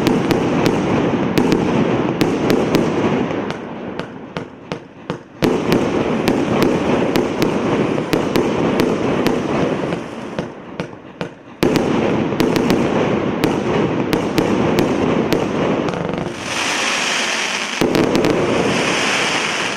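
Absolute Fireworks Dominator 2 x 50-shot cake firing a rapid, continuous barrage of shots with many sharp bangs. The barrage comes in waves, dropping off briefly about five and eleven seconds in and starting again at once. A brighter, higher-pitched stretch of effects comes near the end.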